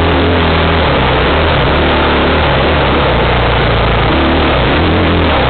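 Off-road vehicle engine running and revving as it is ridden along a rough dirt trail, heard from on board with heavy wind rumble on the microphone.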